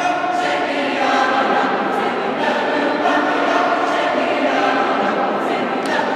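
A high school choir of mixed voices singing together, holding chords that shift every second or so.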